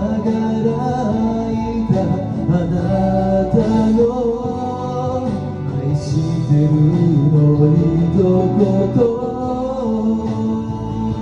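A man singing a Japanese pop ballad over a karaoke backing track with guitar; near the end the voice drops out and the guitar carries on.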